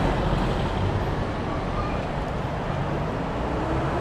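Steady traffic noise: a low vehicle rumble under an even hiss. Near the end a faint engine note slowly rises in pitch.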